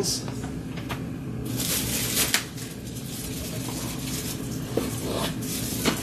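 Cardboard box and paper packaging being handled: rustling and scraping with a few light knocks, over a steady low hum.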